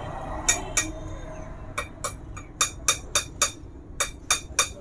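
A steel combination spanner clinks sharply against a valve-clearance adjuster locknut and the aluminium cylinder head of a motorcycle engine, about a dozen times at uneven spacing, while the rocker clearance is being set.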